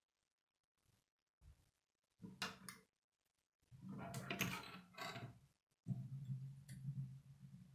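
Plastic K'nex rods and connectors clicking and rattling as they are handled and snapped together, in short clusters. A low steady hum comes in about six seconds in.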